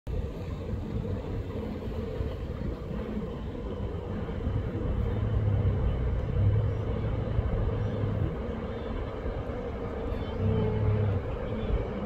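A large herd of wildebeest crossing shallow water: a steady low rumble, with deep calls that come and go in stretches of about a second.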